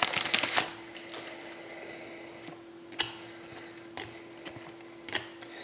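A trading card pack wrapper crinkles as it is torn open in the first second. Then come soft handling noises, with a few light clicks as the cards are sorted.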